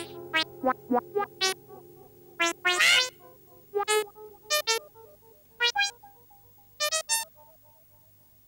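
Sparse cartoon background music on synthesizer: short, separate notes at uneven intervals, one with a wavering pitch about three seconds in. The notes stop about seven seconds in.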